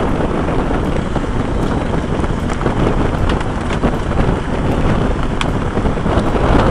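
Wind buffeting the microphone of a camera held out of an open car window, over the low rumble of the car rolling slowly along a gravel road, with small stones crackling and clicking under the tyres.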